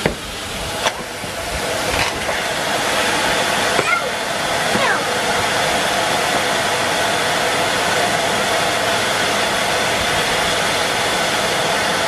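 Henry vacuum cleaner motor running steadily, with a few knocks in the first two seconds as the nozzle and wand are moved over paving slabs.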